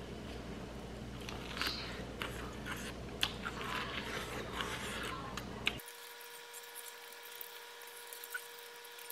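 A person biting into and chewing corn on the cob, a run of short clicks and mouth sounds over a low room hum. A little before six seconds in, the hum cuts off abruptly, leaving fainter chewing over a faint steady tone.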